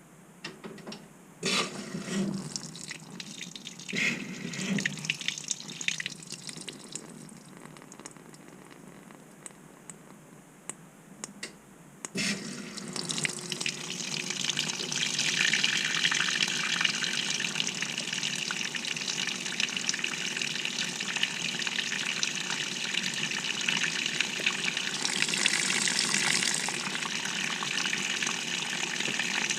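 Water rushing into the tub of a 2018 GE GTW220ACKWW top-loading washing machine, heard from inside the drum as the cycle starts filling. A few scattered knocks and clicks come first; the water starts suddenly about twelve seconds in and then runs steadily.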